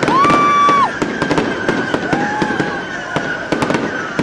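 Aerial fireworks going off overhead in a rapid, irregular series of sharp bangs and crackles. A held whistling tone sounds for almost a second at the start, and a shorter one comes about two seconds in.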